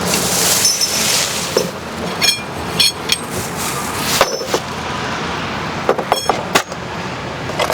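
Metal tools and parts being handled and rummaged through: several sharp knocks, a few of them ringing clinks, over a steady background hiss.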